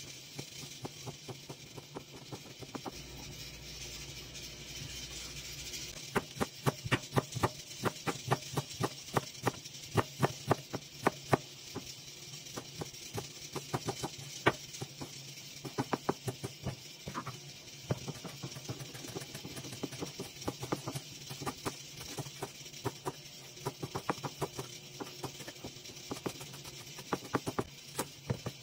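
Chef's knife chopping on a plastic cutting board, cutting through ham, carrot and green onion. The taps are sparse for the first few seconds, then come in quick runs over a steady low hum.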